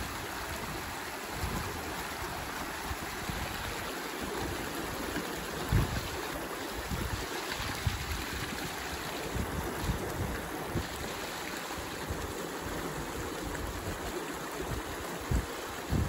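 A shallow stream rushing steadily over rocks in a small riffle. A few brief low thumps of wind buffeting the microphone come about six, eight and fifteen seconds in.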